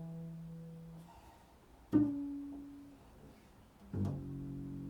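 Improvised music on a plucked string instrument. A note rings and fades, a single new note is plucked about two seconds in, and a fuller chord is struck near the end and left ringing.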